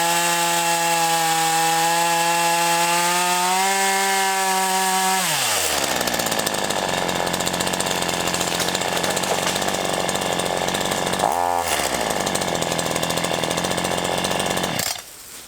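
Black Max 16-inch two-stroke gas chainsaw running at full throttle with a high, steady engine note. About five seconds in the pitch drops sharply as it bogs in the cut, and it runs on lower and noisier with a short dip and recovery near eleven seconds. It stops abruptly about a second before the end.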